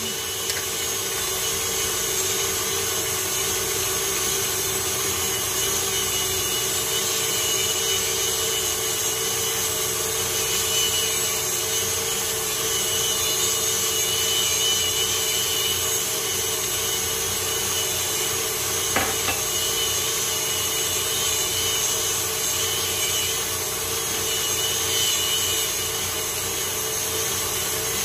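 KitchenAid Ultra Power stand mixer running steadily, its wire whip beating cream cheese cupcake batter in a steel bowl.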